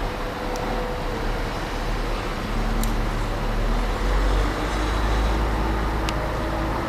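Steady low rumble and hiss of outdoor background noise, with three faint clicks spread through it.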